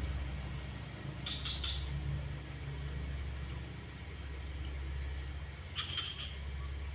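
Streamside ambience: a steady high-pitched insect drone over a low rumble, with two quick runs of about three chirps each, one about a second in and one near the end.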